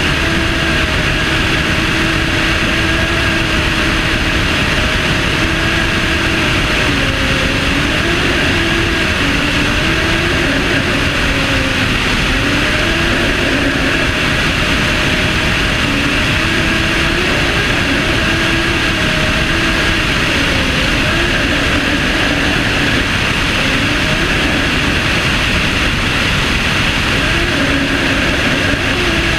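Propeller aircraft in flight, heard from its wing tip: a steady engine and propeller drone whose tone wavers slightly up and down in pitch, under a constant rush of wind noise.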